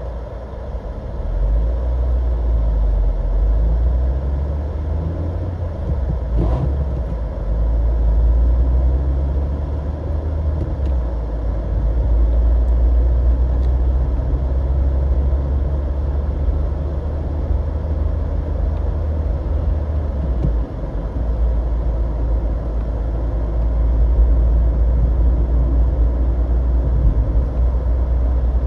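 Car driving through city streets: a steady low rumble of engine and road noise, with one brief knock about six and a half seconds in.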